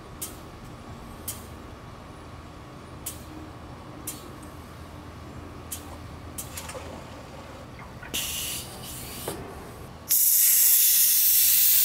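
Cooling-system pressure tester putting air into an engine's cooling system: a few faint clicks, a short hiss, then from about ten seconds in a loud steady hiss of air escaping. The leak is at the expansion-tank cap, which lets it out as soon as any pressure goes in.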